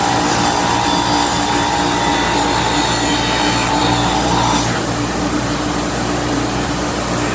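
Bench grinder with an 80 grit wheel grinding draft and burrs off a drill press casting. The grinding hiss stops about two-thirds of the way in when the part comes off the wheel, and the grinder motor keeps running.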